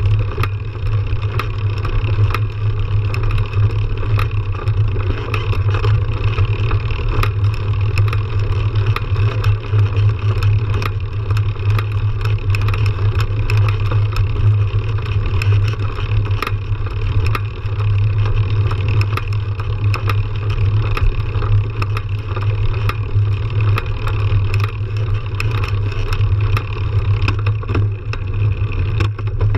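Fat-tyre mountain bike rolling over a dirt trail: a steady low rumble of tyre and riding noise with frequent small clicks and rattles over bumps.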